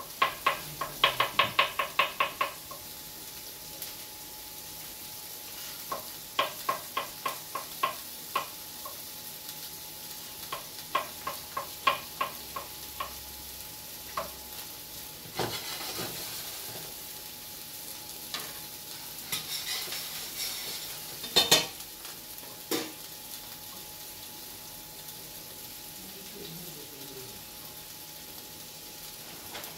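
Kitchen knife chopping button mushrooms on a plastic cutting board in quick runs of taps, about six a second, over the steady sizzle of spring onions softening in olive oil in a pan. A single loud clack of a utensil comes about two-thirds of the way through.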